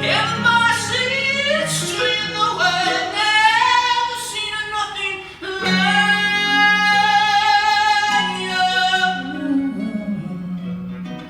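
Live acoustic song: a voice singing long, sliding held notes without clear words over acoustic guitar, with one note held for about three seconds past the middle.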